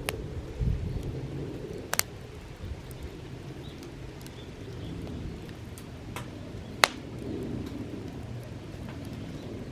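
Campfire of firewood burning: a steady low rush with sharp pops and crackles of the burning wood, three of them standing out, the loudest a little before seven seconds in.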